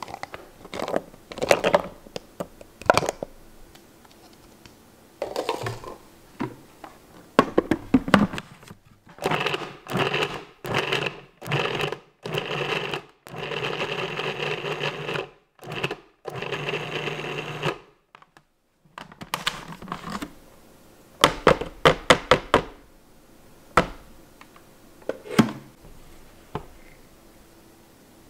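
Food processor pulsing cold butter cubes into flour for pie dough: a string of short motor bursts, then a few longer runs of a second or two. Before and after the pulsing come scattered clicks and knocks from handling the plastic bowl.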